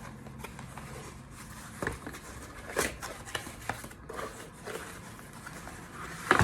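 Handling of a boxed candle and its packaging: a few scattered knocks, scrapes and rustles, with a louder knock near the end.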